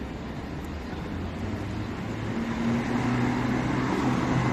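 Street traffic: a motor vehicle's engine hum comes in about halfway through and grows louder over the steady noise of the road.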